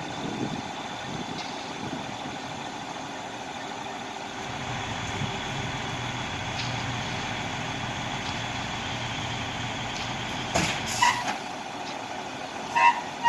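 Heavy truck engine running steadily at a concrete pour, with two short, sharp bursts of noise near the end.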